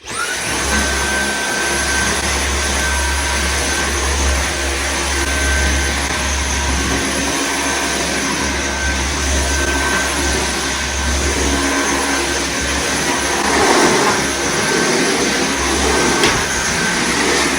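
Dyson battery stick vacuum switched on, its motor spinning up with a quick rising whine and then running steadily with a high whine while vacuuming a hardwood floor.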